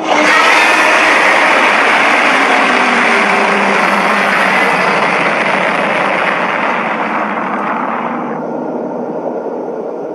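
Kaiju-film sound effect: a long, loud, harsh rushing noise that starts suddenly, loses its hiss after about eight seconds and slowly fades.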